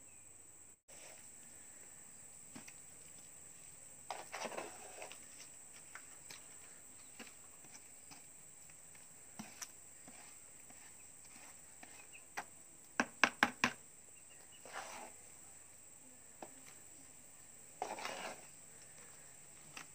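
Hand trowel scooping and scraping wet cement mortar in plastic paint buckets, with scattered clinks and a quick run of about five sharp taps a little past the middle of the clip.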